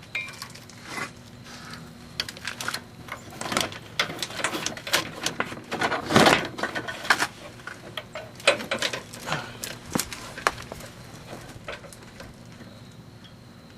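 Irregular clicks and taps of hands working a wheel-speed sensor wire and its small plastic clips into place along the brake line, busiest in the middle and dying away near the end.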